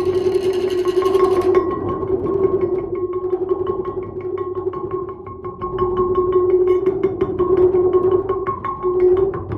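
Sounding stone (lithophone) struck in a fast, even roll of light taps, keeping one steady ringing pitch going. A hissing rustle joins in during the first second and a half.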